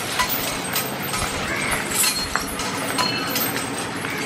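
Iron leg chains on a walking elephant clinking lightly, with scattered short taps over a steady background hiss.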